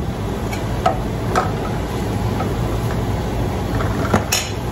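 Steady low hum of a kitchen stove with two pans heating, broken by a few light utensil clicks, the sharpest pair near the end.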